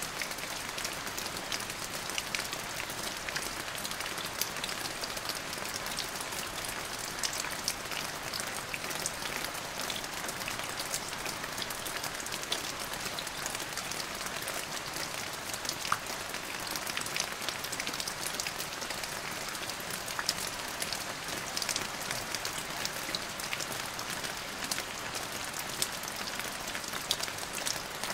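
Steady rain falling on a surface: an even hiss scattered with many sharp ticks of individual drops.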